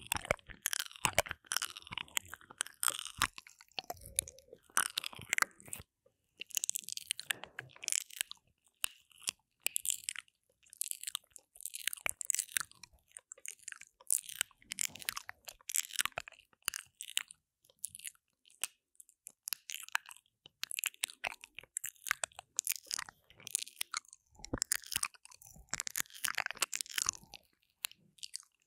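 Wet mouth sounds made right on the ear of a binaural microphone: lip smacks and mouth clicks coming in quick bursts with short pauses between, stopping just before the end.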